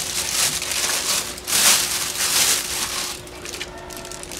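Packing material being handled, with irregular rustling and crinkling that is loudest in the middle and dies down near the end.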